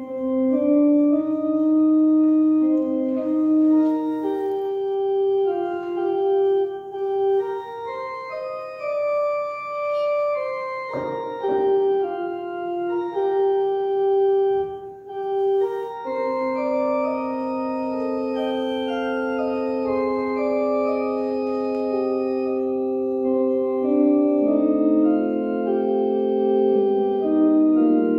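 Church organ playing slow sustained chords as offertory music. It starts suddenly, and from about halfway through a long low note is held under the chords.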